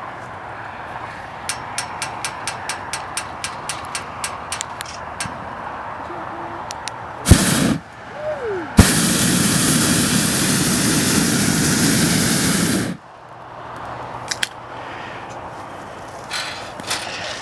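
A run of sharp clicks, about three a second, then a short blast and a steady roar as a hot-air-balloon propane burner fires for about four seconds, cutting off suddenly.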